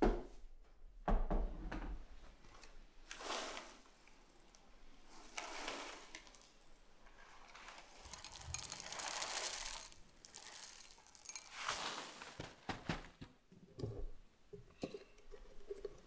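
Dry O-shaped cereal poured from a box into a bowl, rattling in several long pours, with a few taps and clicks of handling between them and near the end.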